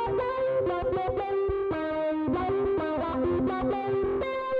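Snail concert electro-acoustic ukulele played through distortion and overdrive pedals with an auto-wah, in a steady run of picked notes, several a second.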